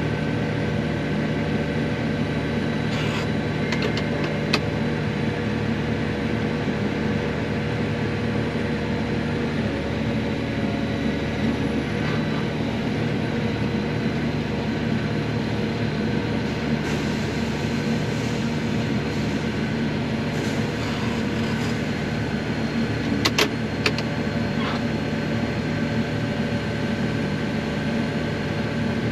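Vehicle engine running steadily, a constant hum, with a few light clicks around three to four seconds in and a couple more near the end.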